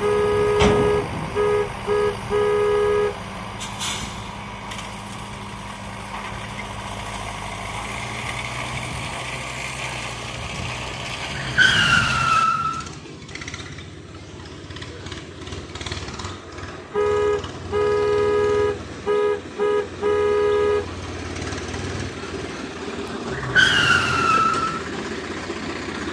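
A horn honking in quick patterns of short toots, twice over, over a steady background hum, with two short falling whistle-like chirps in between.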